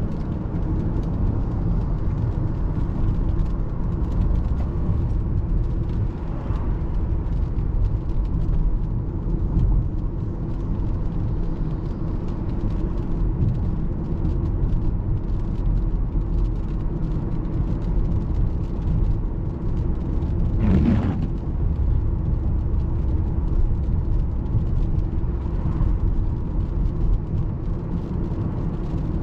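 Steady low rumble of a car on the move, engine and road noise with a faint hum. About two-thirds of the way through, a short rising sound rises briefly above it.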